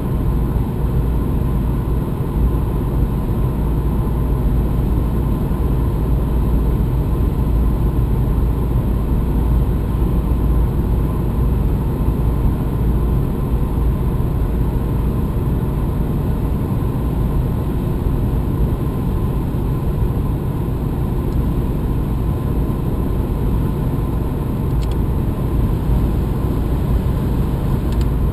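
Steady road noise inside the cabin of a 2012 Subaru Impreza driving at highway speed, the car fitted with sound-deadening material; the cabin level reads about 76 dB on a phone meter.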